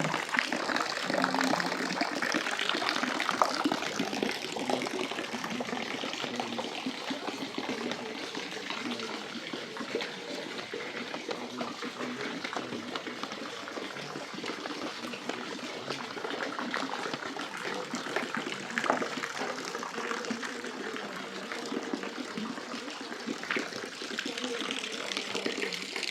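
Steady running water, continuous throughout.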